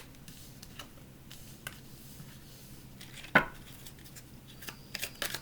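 Tarot cards being handled between shuffles: a few faint card clicks, one sharp tap about three and a half seconds in, and a little cluster of clicks near the end.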